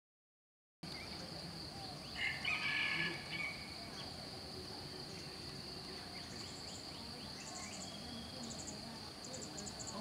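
Dawn countryside ambience that cuts in abruptly about a second in: a steady high-pitched insect drone throughout, a loud bird call about two seconds in, and short rapid chirping trills in the second half.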